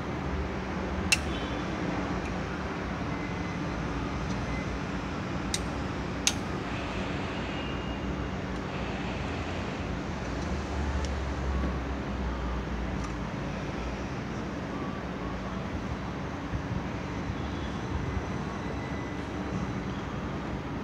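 Steady background traffic hum, with a few sharp metallic clicks of hand tools against the bare cylinder head: one about a second in, two more around five to six seconds in.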